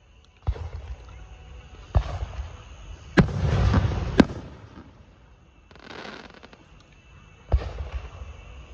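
Fireworks going off: about five sharp bangs a second or so apart, each trailing into a rumbling echo and crackle. The busiest stretch comes in the middle, where two bangs bracket a dense crackle.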